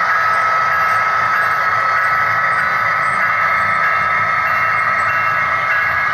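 HO scale model diesel locomotives running past with a steady diesel engine drone and a constant high whine.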